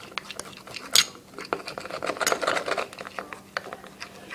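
Utensil stirring melted chocolate in a bowl, clinking and scraping against the sides, with one sharp clink about a second in.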